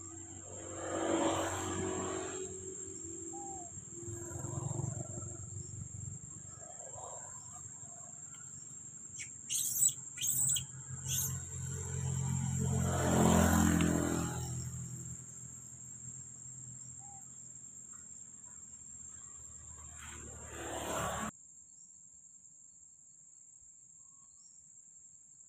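Outdoor ambience: a steady high-pitched insect drone with a few short bird chirps, the sharpest three in a row about ten seconds in, over swells of rushing noise. Everything cuts off suddenly about 21 seconds in, leaving only faint hiss.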